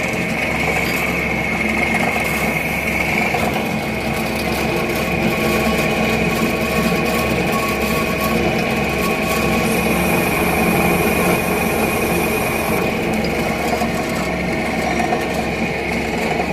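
Round-bar chamfering machine running steadily with a high whine and a low hum as its cutter chamfers the end of a solid steel bar. A higher hiss joins in for a few seconds about two-thirds of the way through.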